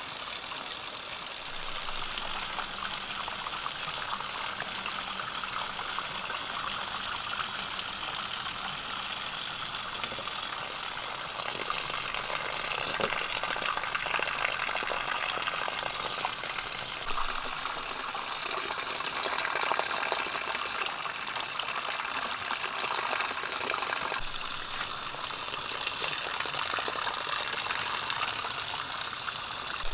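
Water pouring steadily from a bamboo pipe into upright bamboo tubes, a continuous splashing trickle.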